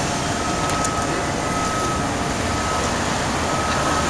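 Steady outdoor background noise, with a faint high steady tone running through it and no sudden events.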